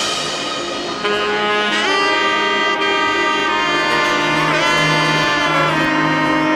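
Background music led by a saxophone-like horn playing long held notes with sliding pitch bends.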